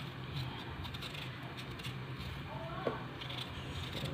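Kitchen knife paring the skin off a raw potato by hand: faint, irregular scraping and slicing strokes over a steady low hum.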